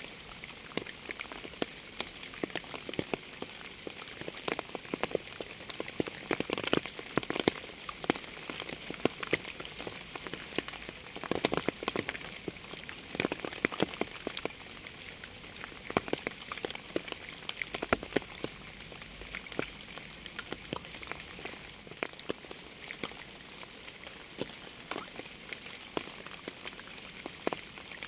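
Steady rain: a continuous hiss with many close, sharp drop impacts, growing denser for short spells now and then.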